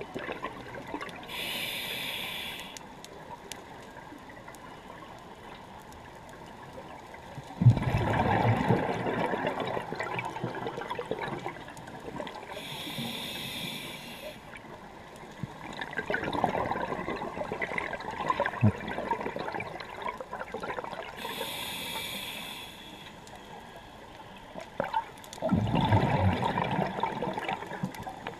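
Scuba diver breathing through a regulator underwater, in a slow cycle: a short hissing inhale, then some seconds later a longer, louder burst of bubbling exhaust, three times over.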